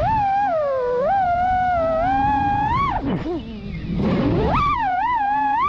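Brushless motors and 4-inch propellers of an FPV freestyle quad (EMAX ECO 1407 motors), picked up by the onboard GoPro: a whining buzz whose pitch glides up and down with the throttle. It drops sharply about three seconds in, then climbs high again.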